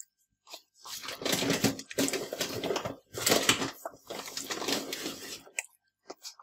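A hand working crumbly cookie dough against a glazed clay dish as flour is mixed in, rubbing and scraping in about four long strokes that stop about five and a half seconds in.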